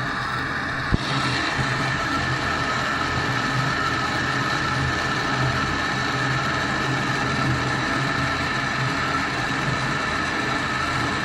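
A machine running steadily with a constant low hum, and one sharp click about a second in.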